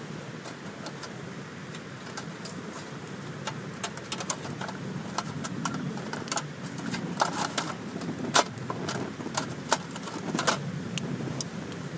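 Wood campfire crackling under a steady low rush, with scattered sharp pops and snaps that come more often and louder from about four seconds in.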